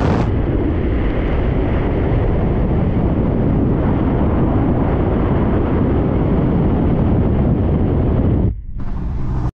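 Wind rumbling on the microphone with road and vehicle noise, recorded from a moving vehicle. It is steady, dips briefly about eight and a half seconds in, then cuts off abruptly at the end.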